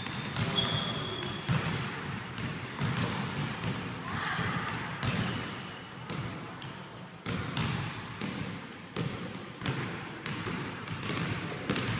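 Irregular series of thuds and knocks, some in quick succession, with a brief high squeak about half a second in.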